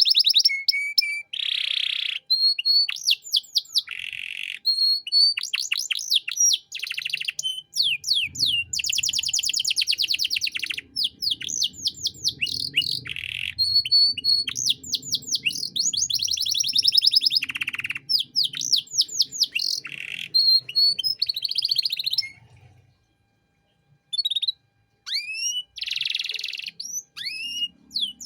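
Domestic canary singing a long, varied song of rapid trills, rolls and quick upward-sweeping whistled notes, broken by a pause of about a second and a half near the end.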